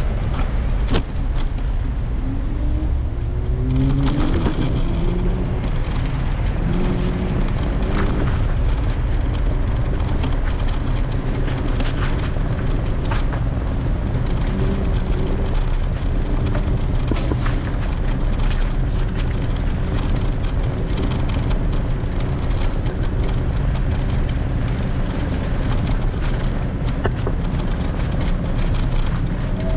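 Heavy wind rumble buffeting the microphone while riding, over city street traffic. In the first few seconds a vehicle engine rises in pitch several times as it pulls away.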